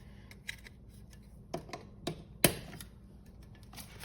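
Scattered light clicks and taps from handling a small plastic UV nail lamp and its cord during unboxing, with one sharper click about two and a half seconds in.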